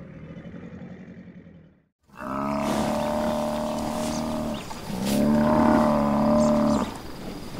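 Cape buffalo bellowing: two long, drawn-out, steady calls of about two seconds each with a short break between. Before them a fading, noisy sound cuts to a moment of silence.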